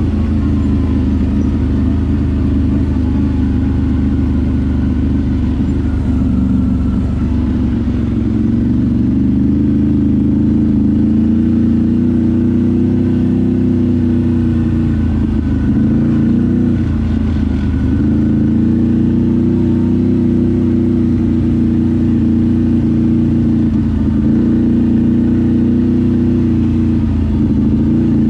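ATV engine running at fairly steady revs, with the pitch dipping briefly a few times as the throttle is eased off and reopened.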